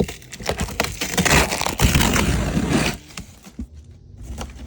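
A cardboard box being opened and its packaging handled: crackling and rustling with sharp clicks and knocks. It is loudest from about one to three seconds in, then quieter.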